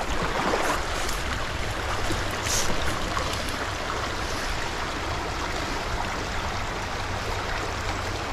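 Shallow creek running over gravel and stones: a steady rush of flowing water.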